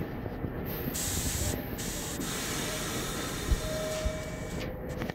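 Stopped R46 subway car hissing as compressed air vents from its air system, a high hiss that starts about a second in, breaks briefly, and stops near the end, over the steady low hum of the standing train.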